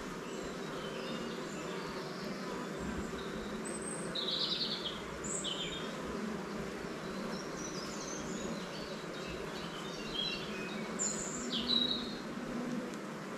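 Steady hum of a honeybee colony in an opened hive, with short bird chirps at intervals, clearest about four to six seconds in and again around eleven seconds in.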